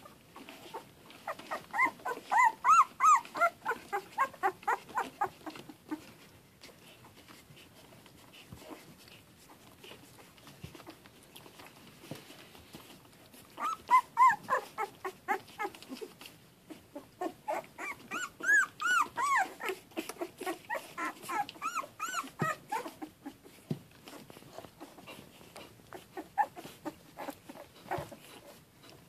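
Young Boston terrier–Labrador mix puppies, eyes just opening, squeaking and whimpering in strings of short high calls, several a second. The calls come in three main bouts, about a second and a half in, around the middle and again just after, with a few stray squeaks near the end.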